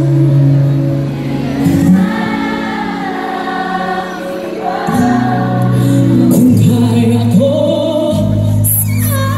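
Two female singers singing a pop medley live as a duet into microphones over musical accompaniment through the stage sound system, holding long sustained notes.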